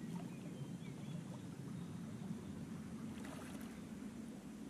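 River water lapping and trickling right at the microphone as the camera drifts at the waterline: a steady low wash, with a brief crackle of splashing about three seconds in.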